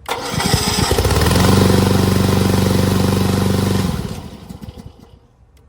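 The 9-horsepower gasoline engine of a VTC550-90 remote control lawn mower is started by remote. It cranks unevenly for about a second, catches and runs steadily, then fades out about four seconds in.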